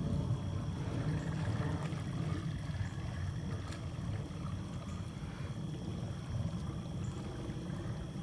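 Honda ATC 250SX three-wheeler's engine running while it is driven through deep water, a steady low rumble with water churning around the machine.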